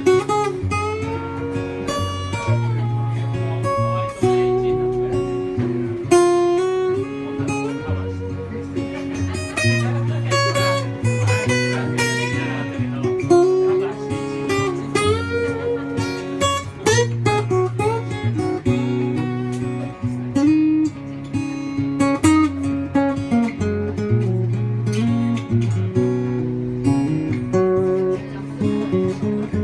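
Acoustic guitar played solo in an instrumental break of a ballad, with chords and melody notes over a steady bass line.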